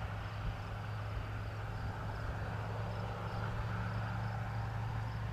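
Steady low diesel engine hum, with insects chirping faintly in an even rhythm.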